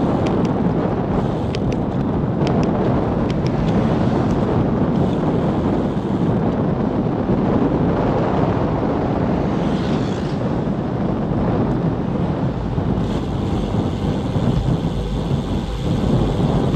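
Wind buffeting the microphone of a camera on a bicycle moving at about 30 km/h: a loud, steady low rumble, with a few faint clicks in the first few seconds.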